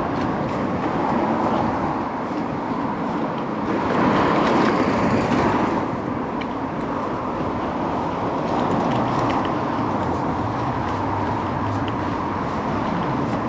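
Steady rush of wind and road traffic heard from a moving bicycle, swelling louder for a couple of seconds about four seconds in.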